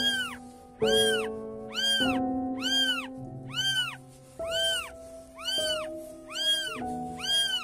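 Newborn kittens mewing: a regular run of short, high cries that rise and fall in pitch, a little under two a second, over background music of held notes.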